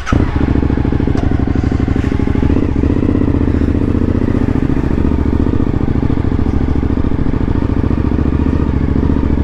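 Suzuki V-Strom motorcycle engine running steadily at low speed as the bike rolls off, heard close up from the handlebars.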